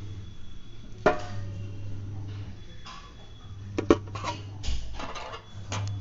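Sharp clicks and clatters of hard plastic and metal as desktop RAM sticks are handled against the computer case: one about a second in, a close pair near the four-second mark, then a few more, over a steady low hum.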